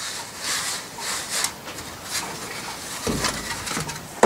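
Oil-bonded foundry sand being rubbed by hand through a riddle screen, a repeated gritty swishing, with a low thump about three seconds in.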